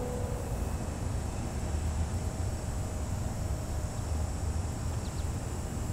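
Wind buffeting the microphone, a low, uneven rumble, with a couple of faint high chirps about five seconds in.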